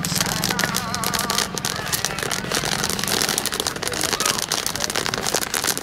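Corn popping in a large hot pan: a dense, continuous run of sharp pops and crackles.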